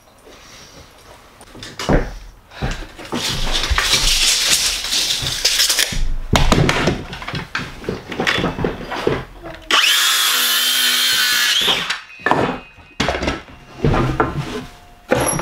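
Cordless circular saw cutting wooden floorboards, its motor whining steadily for a couple of seconds near the middle. Wooden knocks and clatter of boards being handled come before and after.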